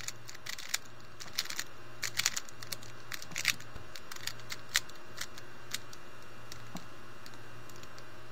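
Plastic Rubik's Cube layers being turned by hand: a quick run of light clicks and clacks that thins out to a few single clicks and stops after about six seconds.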